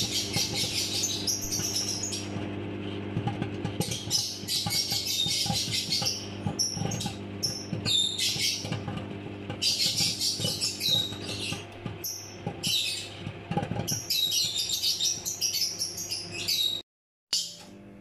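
Pet birds chirping loudly and repeatedly over the steady hum of a running microwave oven, with popcorn popping inside it as short knocks; it all cuts off suddenly near the end.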